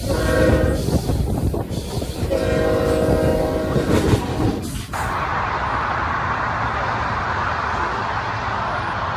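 A train's multi-chime air horn sounds two blasts, the second about two seconds long, over the rumble and clatter of the train's wheels on the rails. About five seconds in the sound cuts abruptly to a steady rushing noise.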